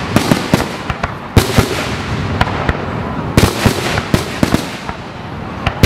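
Aerial fireworks shells bursting in quick succession: a string of sharp bangs, some in tight clusters. The loudest reports come about a second and a half in and again about three and a half seconds in.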